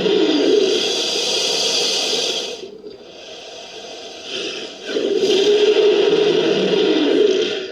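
Two long, harsh, rasping roars of a fictional dinosaur-crocodile hybrid, a sound effect built from Spinosaurus and Sarcosuchus creature sounds. The first fades out about two and a half seconds in, a lower rumble follows, and the second roar comes in about five seconds in and ends shortly before the close.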